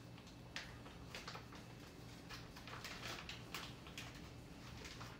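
Plastic bag of raw chicken thighs crinkling and rustling in the hands, a scatter of faint small crackles.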